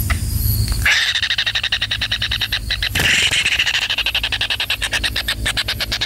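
Kingfisher nestlings calling from inside the nest cavity: a fast, buzzy rattling trill of about ten pulses a second that runs on without a break. It swells about a second in and again near the middle.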